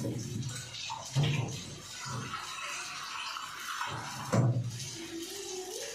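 Water running into a kitchen vessel with a steady hiss, and three dull knocks of utensils.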